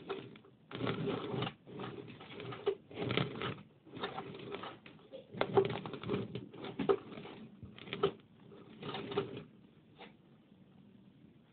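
A mouse gnawing in about eight short scratchy bursts with brief pauses between them. The bursts stop about nine and a half seconds in, and a single click follows.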